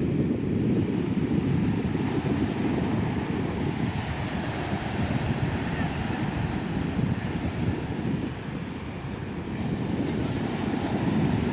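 Ocean surf washing onto a beach in a steady, swelling rush, with wind rumbling on the microphone.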